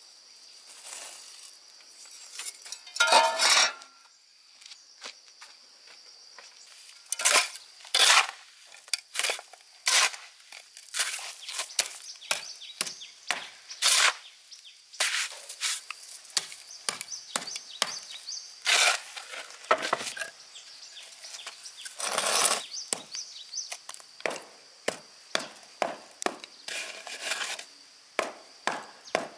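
Repeated sharp chopping strokes on wood, irregular at first and settling into a steady run of about two a second near the end, over a faint steady high-pitched hum.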